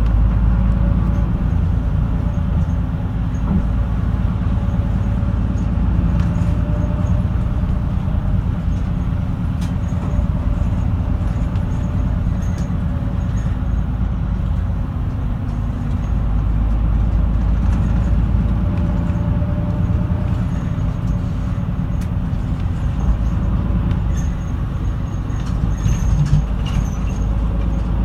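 Route bus engine and road noise heard from inside the cabin while driving: a steady low rumble with a faint whine that drifts slightly in pitch, and a few light rattles.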